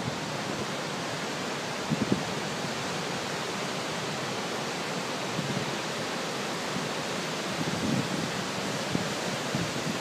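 Steady rush of the Kinchkha waterfall and its rocky river, an even roar of falling water. A few soft low bumps come through about two seconds in and near the end.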